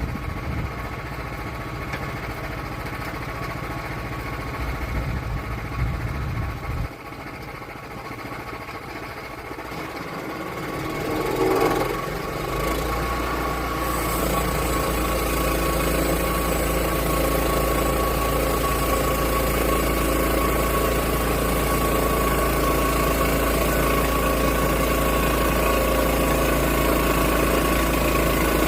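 An engine running steadily. It eases off about seven seconds in, picks up again around eleven to twelve seconds, and then settles into a louder, steady run with a deep hum.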